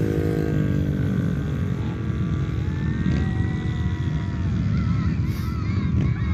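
Several flat-track race motorcycles running around the track over a steady low rumble, their engine notes rising and falling as they rev and ease off.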